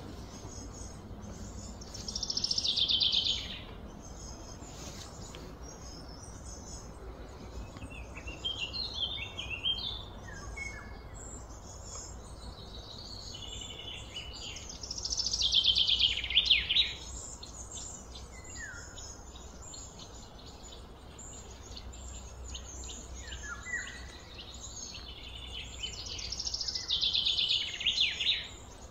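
A songbird singing a short, fast, trilled high phrase three times, about twelve seconds apart, with softer chirps from other birds in between.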